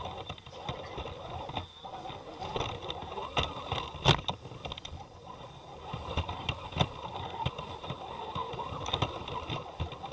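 Electric RC scale rock crawler driving over rocks: a steady high motor whine with irregular knocks and clatter of the tyres and chassis on the rocks, one loud knock about four seconds in.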